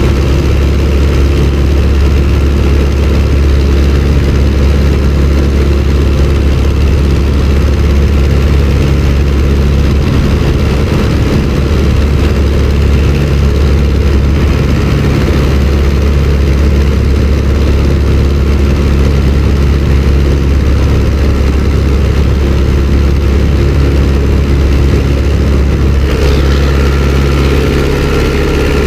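De Havilland Tiger Moth's four-cylinder engine and propeller running loud and steady as the biplane climbs away after takeoff, heard from inside the open cockpit.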